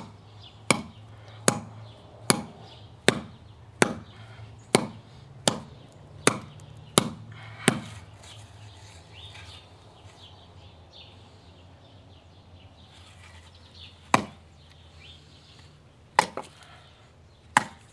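Large survival knife blade chopping into a wooden 2x4: about ten sharp chops just under a second apart, then a pause, and three more strikes near the end. The wood is thick, and the chopping is slow going.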